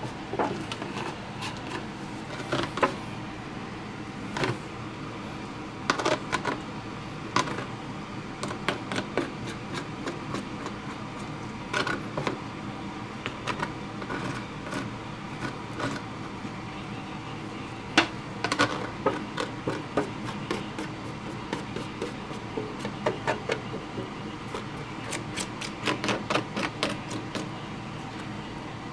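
A mixing stick scraping and tapping against a thin aluminium foil pie tin as two-part epoxy bedding compound (Acraglas Gel resin and hardener) is stirred together. The clicks come irregularly, in quick clusters, over a steady low hum.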